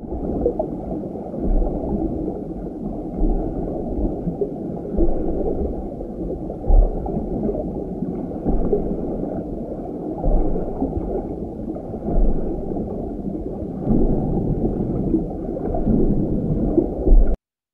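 Muffled underwater water noise: a steady, dense rumbling wash with gurgling and occasional deep low thumps, stopping abruptly near the end.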